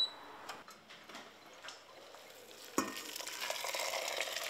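An induction hob's touch control beeps once at the start, followed by a few faint clicks. About three seconds in comes a sharp knock, then hot water pours steadily into a pot of grains and chickpeas.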